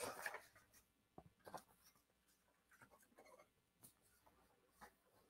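Near silence, broken by a few faint, short rustles and light taps of paper being handled.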